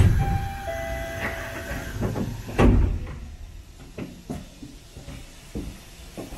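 Sliding doors of a stopped Chiba Urban Monorail suspended car working, with a few short chime tones in the first two seconds and a loud knock about two and a half seconds in, followed by lighter clicks.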